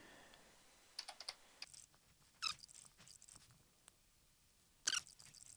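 Computer keyboard keystrokes as a password is typed, in short scattered runs of quiet clicks, with two louder clicks about two and a half and five seconds in.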